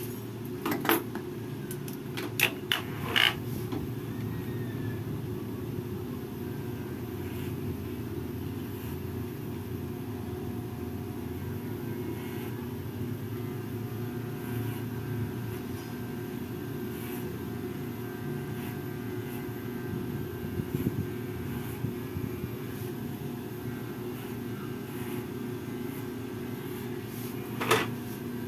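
Corded electric hair clipper buzzing steadily while trimming hair around the ear. A few sharp clicks come about a second in, around three seconds in, and again near the end.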